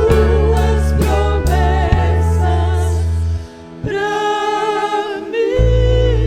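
Worship song sung by a vocal group with band accompaniment: voices with vibrato over bass and drums. The band drops away briefly a little past halfway, the voices come back, and the bass returns near the end.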